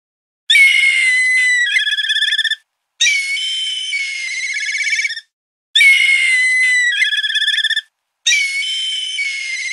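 High-pitched, whistle-like electronic tones playing a short phrase in four blocks of about two seconds each, with dead silence between them; the same pair of phrases comes twice.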